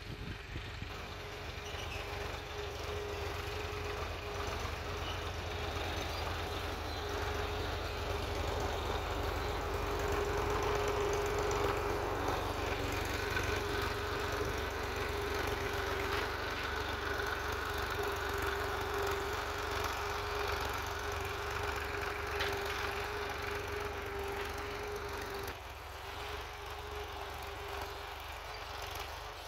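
A machine running steadily, with a constant hum over a low rumble; the hum and rumble ease off slightly near the end.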